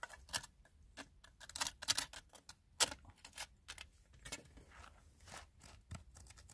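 A small hand pick scraping and chipping at hard-packed dirt around cobbles, with stones and gravel clicking. The clicks and scrapes are irregular, and a couple of louder knocks come around two and three seconds in.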